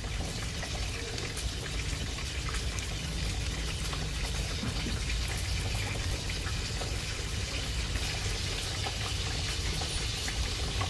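Tongs stirring and lifting pickled cucumbers in a plastic jar of brine: liquid sloshing and dripping, with small clicks, over a steady low hum.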